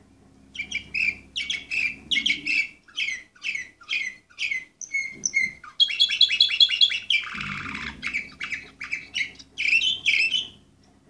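Orpheus canary singing a long song of repeated high phrases, with a rapid trill a little past halfway and a short harsh note right after it, stopping shortly before the end.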